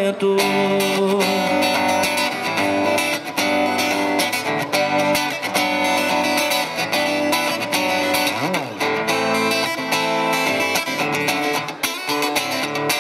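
Acoustic guitar played without singing, strummed chords mixed with picked melody notes.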